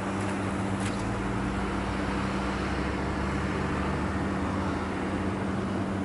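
Car engine idling, a steady low hum.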